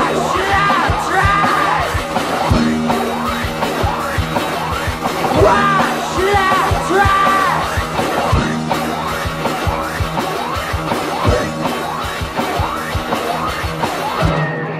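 Improvised experimental noise-rock of electric guitars and space toys: a dense, noisy wall of sound crossed by wailing tones that slide up and down. The texture thins out near the end.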